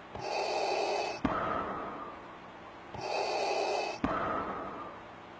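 Darth Vader's mechanical respirator breathing: two slow, identical breath cycles, each a hissing inhale followed by a hissing exhale.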